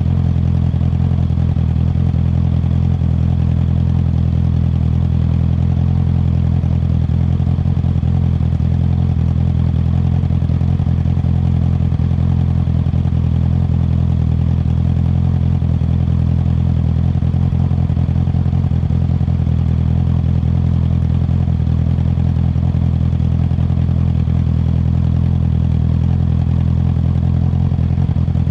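2019 Honda CB650R's inline-four engine idling steadily through an Akrapovic Racing Line titanium exhaust, heard close to the muffler outlet.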